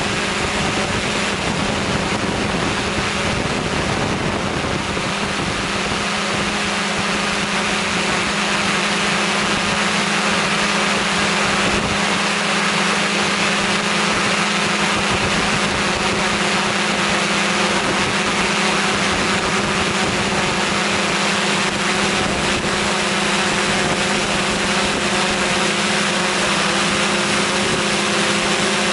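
Steady drone of an aircraft's motor and propellers filming from the air, one constant low hum with fainter higher tones over it, mixed with wind rush.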